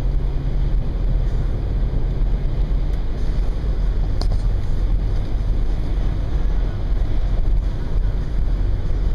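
Car driving at highway speed on a snow-packed road: a steady low drone of engine and tyres with wind noise from a strong crosswind. A single light click about four seconds in.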